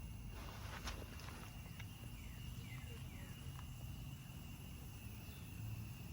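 Outdoor ambience: a steady high insect drone with short falling chirps repeating every half second or so, and a brief rustle and click about a second in.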